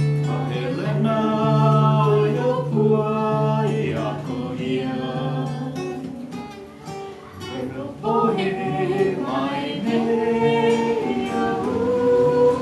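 A group singing a slow song to an acoustic guitar played with the fingers, with long held notes and a short quieter stretch about seven seconds in.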